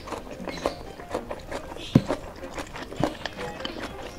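Close-miked eating sounds: wet mouth clicks and smacks of chewing chicken and rice, with fingers gathering rice on a banana leaf. A louder knock comes about two seconds in.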